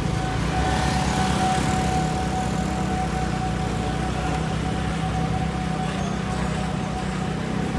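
Street traffic of motorbikes and cars, a steady engine hum under a wash of road noise, with a thin steady whine above it.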